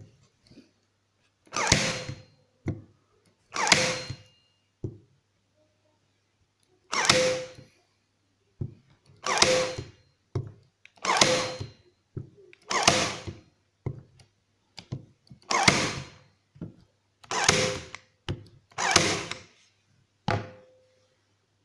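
Bosch PTK 3.6 LI cordless electric stapler firing staples into a slice of log, about ten shots one to three seconds apart, with lighter clicks from the tool being handled between shots.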